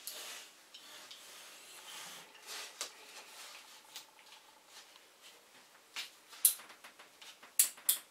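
Hands handling a small circuit board and its wires: rubbing and scraping, with a few sharp clicks in the last two seconds.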